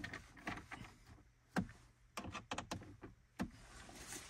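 Hand screwdriver and screws clicking and knocking against the plastic dash trim as two screws are driven into the dash panel: irregular light clicks, with a quick run of clicks about two seconds in and two louder knocks, one about one and a half seconds in and one near three and a half seconds.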